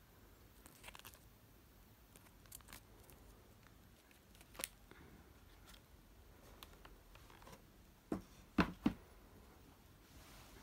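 Rustling and crinkling of a clear plastic film sleeve and packaging being handled, with scattered light clicks. Near the end come three quick knocks close together, the loudest sounds.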